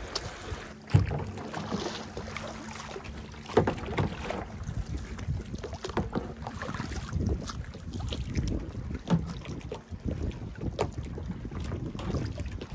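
Canoe being paddled through choppy, windy water: irregular paddle strokes and splashes of waves against the hull, with wind buffeting the microphone. A few sharper knocks or splashes stand out, the loudest about a second in and again a few seconds later.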